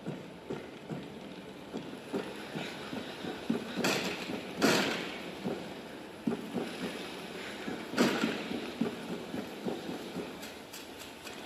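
A run of irregular thuds and knocks, with louder crashing hits about four, four and a half and eight seconds in.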